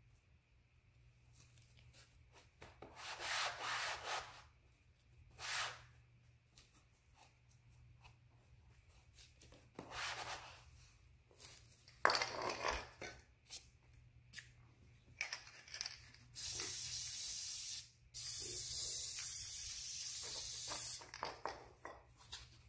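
Foam pads rustling and rubbing as they are handled and pressed onto the cardboard frame, then an aerosol can of Gorilla spray adhesive hissing in two long sprays, a little over a second and about three seconds, near the end.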